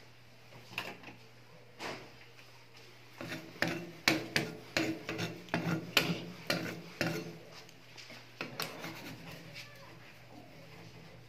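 Metal spatula scraping and tapping on the steel pan of a rolled-ice-cream cold plate: a quick run of rasping strokes that starts about three seconds in and dies away after about six seconds.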